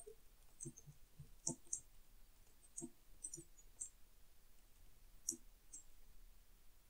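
Faint, irregular keystrokes on a computer keyboard during typing, a dozen or so clicks unevenly spaced.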